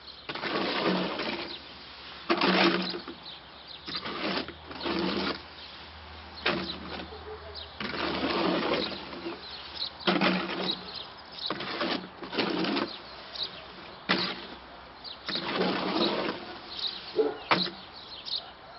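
Shovel scraping and scooping through concrete mix in a metal wheelbarrow, a stroke about every second, each scrape setting the tub ringing faintly.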